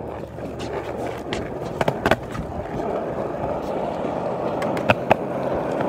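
Skateboard wheels rolling on a concrete driveway, the rumble growing louder as the board approaches, with a few sharp clicks along the way.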